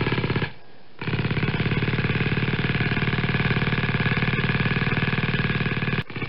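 Cordless power screwdriver running in bursts to back out the screws of a plastic TV antenna and its rotator, a steady motor buzz with a rapid, even rattle. It stops about half a second in, starts again a second in and runs for about five seconds, then stops briefly and starts once more near the end.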